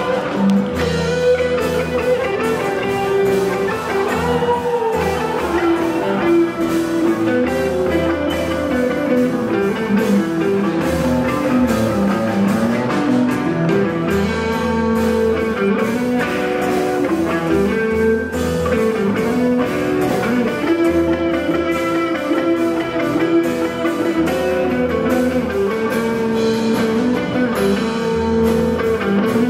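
A live band playing an instrumental, guitar-led passage of a rock song, with bass and drums underneath.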